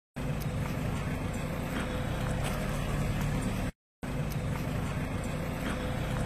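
Vehicle engine running steadily at low speed as it pulls away slowly, with a brief dropout just before four seconds in.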